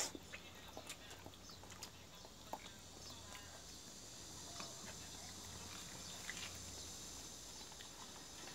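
A yellow Jindo dog licking ice cream out of a small hand-held cup: faint, scattered wet tongue clicks and laps over a low steady hum, with a pause around the middle.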